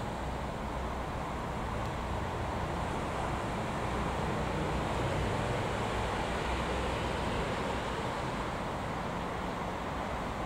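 Freightliner Class 66 diesel-electric locomotive running light engine, its two-stroke V12 diesel running with a steady low drone as it approaches slowly, a little louder in the middle.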